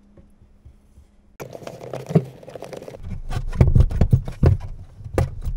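Close handling noise inside a small wooden cabinet as foil-faced sound-deadening pieces are fitted around a water pump. It is nearly quiet for the first second and a half, then rustling and scraping start, turning into a quick run of sharp clicks and knocks from about three seconds in.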